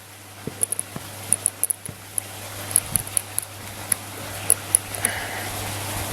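Small metal BMX hub parts clicking and clinking together irregularly as they are handled and fitted during reassembly, over a steady low hum.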